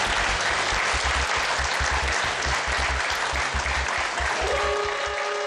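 Studio audience applauding. About four seconds in, the quiz show's end-of-time signal starts, a steady chord of held electronic tones, marking that the episode has run out of time.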